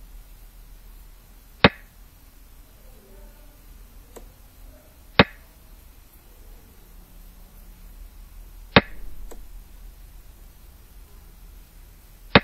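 Xiangqi replay program's move sound: a sharp clack as a piece is set down, four times about three and a half seconds apart, with a couple of much fainter ticks in between.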